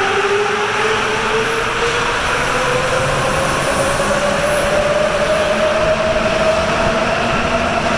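Sapporo subway train accelerating out of a station, the whine of its traction motors rising steadily in pitch over the rumble of its rubber-tyred running gear.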